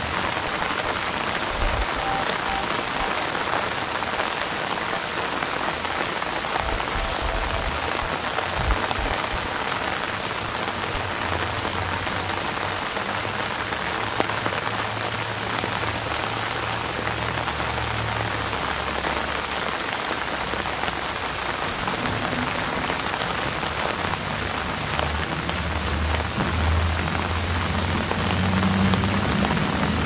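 Steady rain falling on the leaves of an apple tree, a dense hiss of many small drop ticks at an even level. A low rumble comes and goes underneath in the second half.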